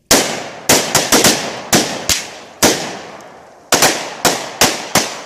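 A line of shooters firing live rounds: about a dozen sharp gunshots at uneven intervals, some in quick pairs, each with a short echoing tail.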